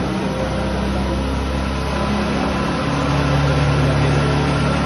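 Gasoline car engine running steadily on a test bed, coupled to a hydraulic dynamometer that loads it for a power measurement; its note grows a little louder about three seconds in.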